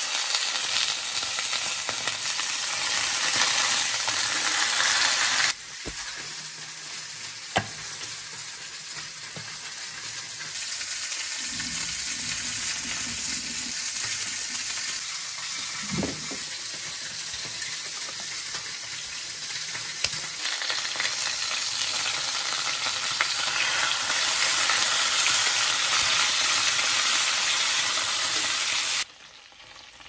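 Chicken pieces sizzling in hot oil in a cast-iron skillet as they brown. The sizzle is loud at first, drops suddenly about five seconds in, then slowly swells again before cutting off just before the end, with a few sharp clicks along the way.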